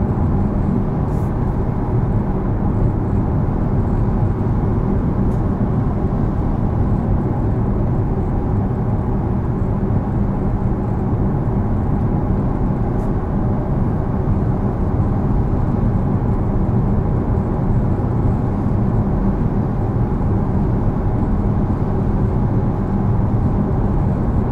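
Steady road and tyre rumble heard inside the cabin of a Porsche Taycan Turbo S, an electric car, cruising at constant speed on cruise control, with a faint steady hum underneath and no engine note.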